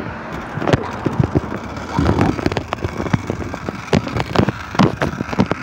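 Wind buffeting a phone's microphone and irregular knocks and rattles of handling while riding a bicycle over pavement.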